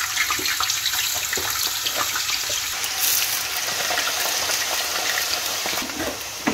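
Potatoes frying in hot olive oil in a pan: a loud, steady sizzle with crackling throughout.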